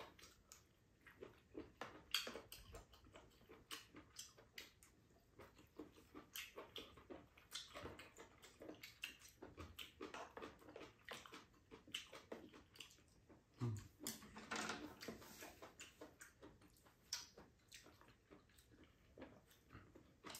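Faint eating sounds at a meal table: chewing and slurping of soft tofu stew, with irregular light clicks of chopsticks and metal spoons against bowls.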